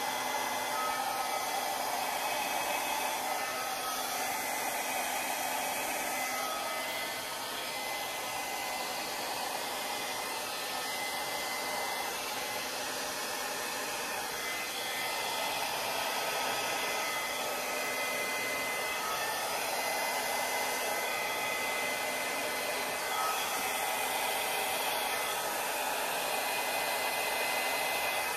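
Drew Barrymore Flower hair dryer running steadily, blowing wet acrylic paint across a canvas: an even rush of air with a faint motor whine, dipping slightly in loudness about a quarter of the way in.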